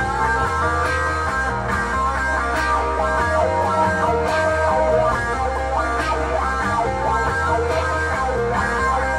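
Layered electric guitar music built from loops: sustained and shifting guitar lines over a repeating bass line, with a light tick on the beat a little under once a second.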